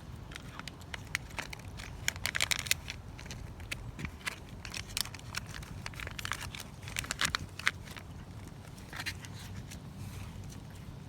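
A cat chewing treats: a run of irregular sharp clicks and crunches, densest about two to three seconds in and again around seven seconds in.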